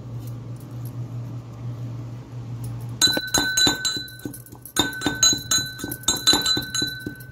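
A utensil clinking and knocking rapidly against a ringing bowl, starting about three seconds in, several strikes a second. A low steady hum runs underneath.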